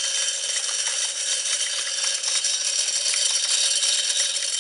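Spin-cast deer feeder's motor spinning its plate and flinging corn: a steady rattling hiss of kernels striking and scattering, which stops near the end. It is a test cycle started from the feeder's test button, because the feeder will not throw on its timer.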